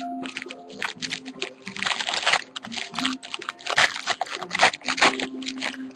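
A trading card pack being opened and handled by hand: the wrapper tearing and crinkling and the cards rustling, in a dense run of irregular bursts over faint background music.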